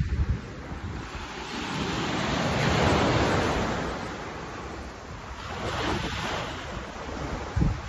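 Ocean surf breaking on a beach: a wash of waves that swells to a peak about three seconds in and again around six seconds. Wind buffets the microphone at the start and near the end.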